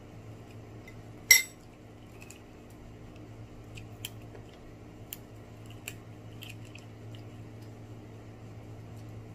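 Tableware clinking on a plate: one sharp, ringing clink about a second in, then several lighter taps and clicks, over a steady low hum.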